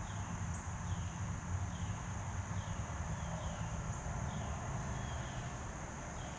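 Steady high-pitched drone of a late-summer insect chorus, with a short falling chirp repeated about once a second, over a low rumble.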